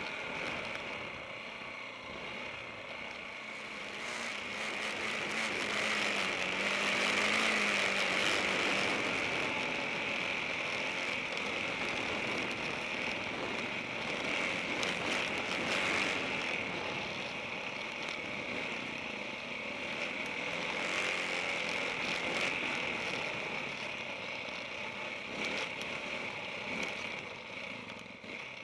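KTM 690 Enduro R single-cylinder motorcycle engine running at low trail speed, heard from the rider's own bike under a steady rushing hiss, with scattered knocks and rattles from the rough dirt track.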